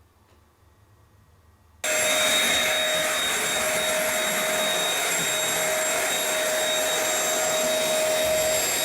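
Dirt Devil SimpliStik corded stick vacuum switched on about two seconds in, then running steadily: a loud rush of air with a steady whine over it.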